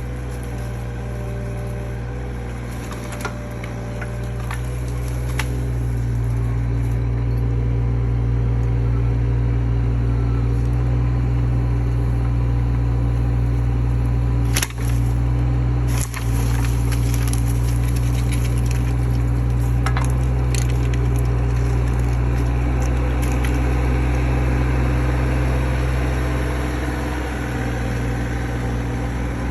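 Mini excavator's engine running steadily, rising under hydraulic load after about five seconds as the grapple works, with scattered sharp cracks and snaps of wood and brush.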